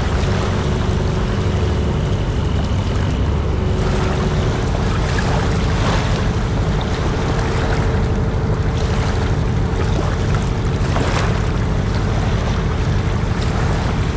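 A boat's engine running steadily, a constant low rumble with a steady hum, over water rushing along the hull in the boat's wake.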